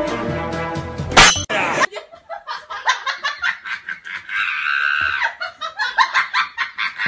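Background music with laughter mixed in, a quick pulsing rhythm throughout. About a second in, a fast sweep shoots up in pitch and drops back down.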